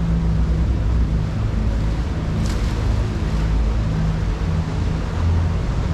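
Vaporetto water bus engine running at a steady low hum, with the noise of water and wind on the microphone.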